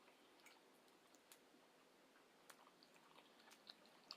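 Near silence with a few faint, scattered clicks of eating: soft mouth and chewing sounds.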